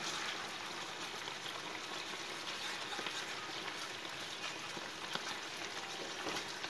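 Mẻ (fermented rice) sauce simmering steadily in a frying pan on a gas burner, a constant bubbling hiss with faint ticks, while a wooden utensil stirs through it.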